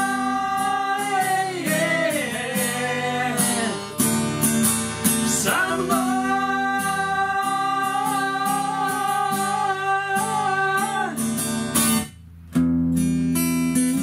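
Acoustic guitar strummed under male voices singing long, held wordless notes that bend in pitch. The voices stop about eleven seconds in. The guitar breaks off briefly a second later, then carries on strumming alone.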